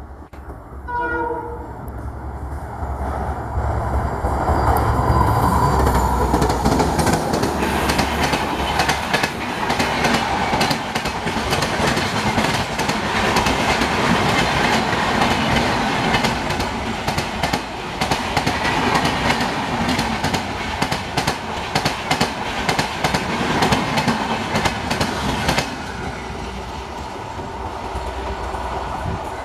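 WDP4D diesel locomotive passing at speed with a passenger train: a short horn note about a second in, the deep engine rumble as the locomotive goes by, then the coaches' wheels clattering steadily over rail joints and points, fading near the end.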